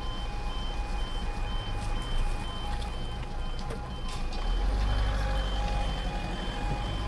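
Level crossing audible warning sounding as a repeating two-tone alarm while the barriers lower, with a car driving past in the middle of it.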